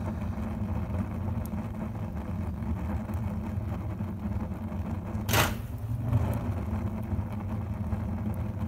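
Sawdust-fed rocket heater running: a steady low hum and rumble from the burn and its feeder machinery, with one sharp crack about five seconds in.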